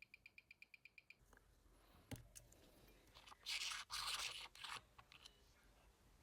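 Mechanical watch movement ticking evenly at about eight beats a second, stopping about a second in. Then comes a single click, and about three seconds in a loud scratching, scraping noise lasting about a second and a half.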